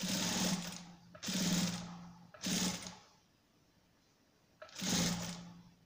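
Electric sewing machine stitching down the bias binding on a fabric edge in four short runs, each about a second or less, with a pause of about a second and a half before the last run.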